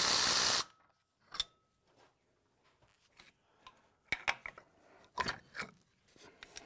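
Steel brake parts and a hand tool clicking and knocking as a loosened front caliper bracket is worked off a truck's hub: one ringing metal click, then a cluster of small clicks and knocks. A short loud hiss of noise cuts off suddenly at the start.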